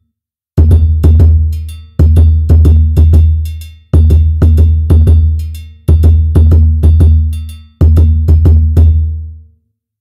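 Sampled dununba, the deep West African bass drum, played in short phrases of several quick strokes about every two seconds. Each phrase carries a deep boom that dies away, and the drumming stops shortly before the end.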